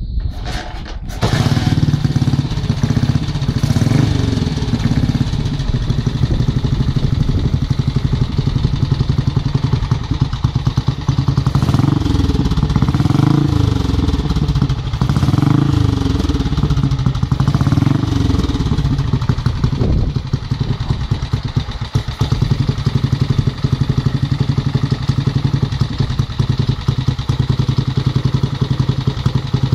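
1965 Velocette Venom Clubman's 500 cc single-cylinder four-stroke engine kick-started, catching about a second in, then running with an even single-cylinder beat through its fishtail silencer. It is revved up and down several times in the middle, then settles back to a steady idle.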